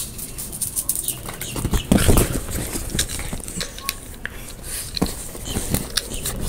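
Irregular light tapping and rustling of a small dog scrabbling and playing with a cat toy close to the microphone, with a louder bump about two seconds in.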